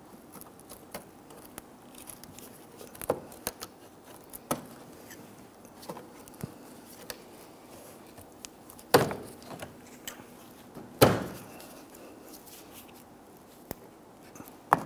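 Plastic push-pin retainers on a Jeep Grand Cherokee's bumper filler panel being pried out with a trim tool: scattered light clicks and scrapes, then two sharp snaps about two seconds apart, a little past the middle, as the clips pop free.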